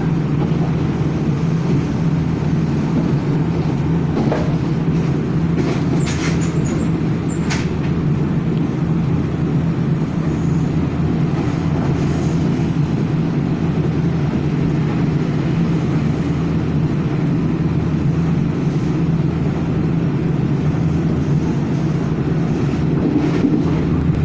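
A Nankai Koya Line electric commuter train running at speed, heard from inside the passenger car: a steady low rumble of wheels on rail. A few brief sharp clicks come between about six and eight seconds in.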